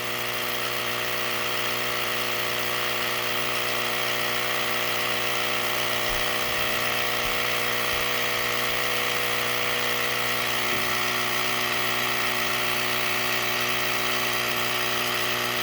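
Battery-powered portable air compressor running steadily as it pumps up a flat four-wheeler tire: a continuous even motor buzz with a hiss of air over it.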